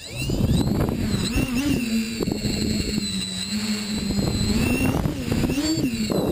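A tricopter's electric motors and propellers whining in fast low flight, the pitch wavering up and down with the throttle, heard from the onboard camera with heavy wind rumble on the microphone.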